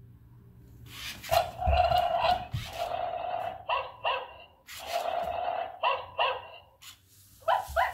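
Yiman robot dog toy playing recorded dog barks through its small built-in speaker: a run of barking calls, some held and some short, with quicker rising yelps near the end.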